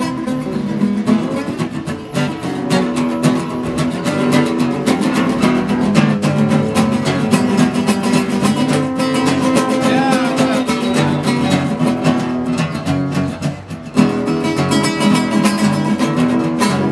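Two acoustic guitars, a nylon-string classical and a steel-string, played together: strummed chords and picked notes in a steady run. The playing dips briefly about three-quarters of the way through, then comes back louder.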